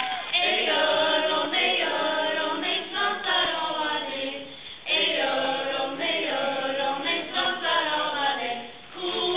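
A group of voices singing together without accompaniment, in two phrases with a short break about halfway through.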